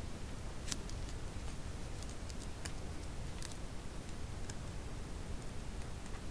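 Light, irregular clicks and taps of hands arranging scrapbook materials, a ribbon and a small metal charm on a paper journal page, over a steady low background rumble.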